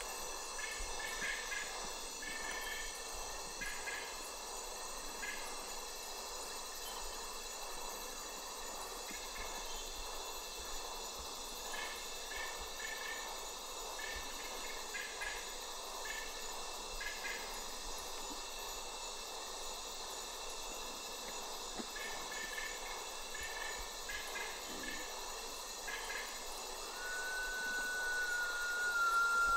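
Night forest ambience: a steady high insect drone with clusters of short chirping notes every few seconds. Near the end a long, slowly falling whistle begins, the song of the White-winged Potoo (Nyctibius leucopterus).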